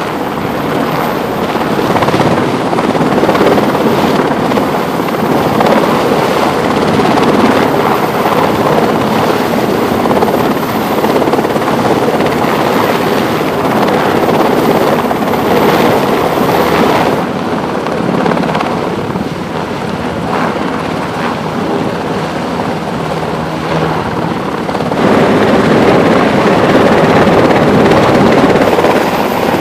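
Navy MH-60 Seahawk helicopter hovering close by, its rotor and turbine engines running loud and steady. The sound thins about two-thirds of the way through, then grows louder again near the end.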